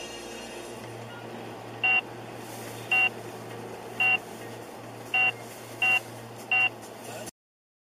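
Six short, identical electronic beeps about a second apart, coming faster near the end, over a steady low engine and road hum inside the car. The sound cuts off abruptly shortly before the end.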